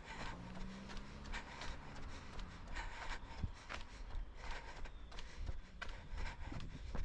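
A runner's footfalls slapping a concrete sidewalk in a steady jogging rhythm, with clothing and gear rustling against the microphone. A faint low hum sits under the first couple of seconds.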